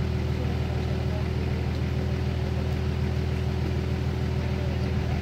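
Off-road 4x4's engine idling steadily at close range.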